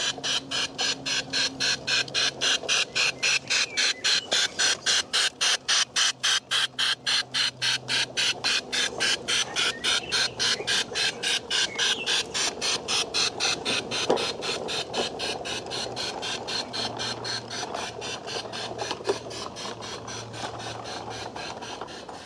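Battery-powered LGB Stainz garden-railway model locomotive running past with its coaches: an even, chuff-like rhythm of hissing beats, about three to four a second, with a faint hum underneath. There are a few sharp clicks from the wheels near the middle, and the beats fade slowly toward the end.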